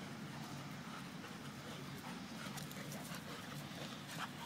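Two dogs play-fighting: a steady low rumbling growl with scattered short scuffs and snaps.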